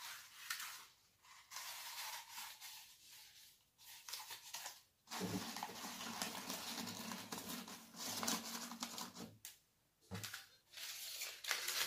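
Cellophane wrapping and rolled paper scrolls crinkling and rustling as they are handled, in irregular stretches with short pauses about five and ten seconds in.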